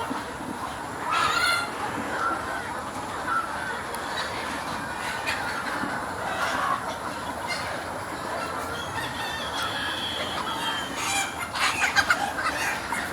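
Flock of free-range chickens clucking and calling, with scattered louder calls and a busier flurry of calls near the end.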